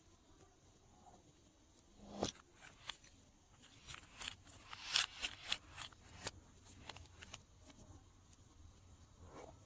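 A run of small sharp clicks and crackles from slime-making materials being handled, densest about two to six seconds in, with one more click near the end.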